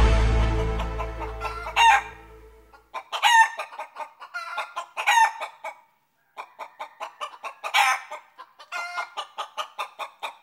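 The tail of an electronic intro tune fades out over the first couple of seconds. Then a chicken clucks in short, repeated calls, with a few louder calls spaced a second or two apart and a quicker run of clucks near the end.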